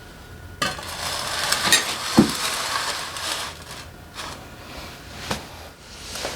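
Metal tools and engine parts handled and scraped on a workbench during engine disassembly, with one heavier knock about two seconds in and a few lighter clicks after.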